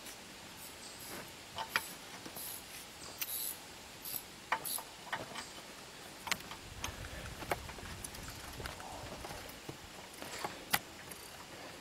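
Scattered clicks and metallic clinks of a hand wrench and socket working on the log splitter's wheel hub, with a few sharper knocks and a faint low rumble partway through.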